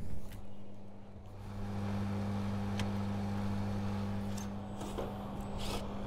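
Steady electrical mains hum from an energised Temperzone air conditioner outdoor unit, running with its condenser fan on and its contactor pulled in while the compressor is disconnected. The hum gets louder about a second and a half in. It holds without tripping the breaker, which the technician takes as proof that the compressor is cooked. A sharp click comes at the very start and a few light clicks follow.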